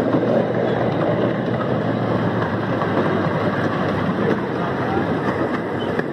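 Miniature park train running along its track, heard from an open passenger car: a steady, even running noise of the wheels and train.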